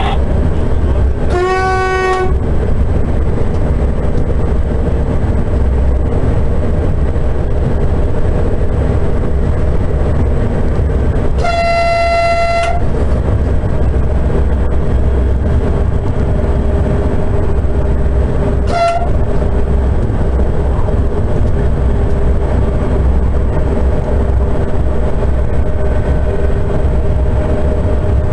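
Steady low running rumble in the cab of a Sapsan (Siemens Velaro RUS) high-speed train at speed, with a train horn sounded three times: a short blast about two seconds in, a longer blast of about a second near the middle, and a brief toot a few seconds later.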